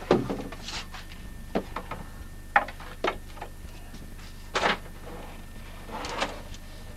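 Wooden knocks, clatters and short scrapes as the rear door and panels of an AŽ beehive are opened by hand, about six sharp knocks with the loudest right at the start.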